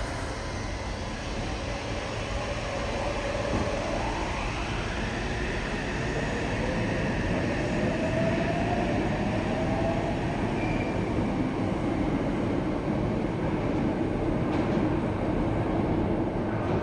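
Yokohama Municipal Subway 3000R-series train departing: its Mitsubishi IGBT-VVVF inverter drive gives a whine that rises in pitch as the train accelerates, over a steady rumble of wheels on rail.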